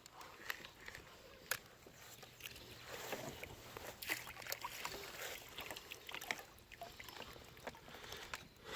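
Water sloshing against a plastic fishing kayak, with scattered small knocks and clicks of gear on the hull.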